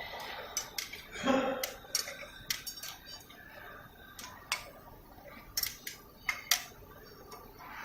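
Automatic welding machine for fan-grill frames at work: irregular sharp metallic clicks and clinks of the steel wire and machine parts, with a short louder clatter about a second in.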